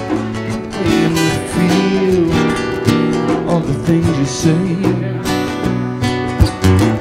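Two guitars playing a song together live: an acoustic guitar and a dark-bodied electro-acoustic guitar, both strummed.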